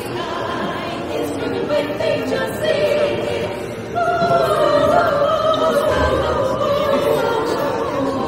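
Vocal group singing in close harmony, sustained and opera-like; about four seconds in a strong held note comes in and grows louder.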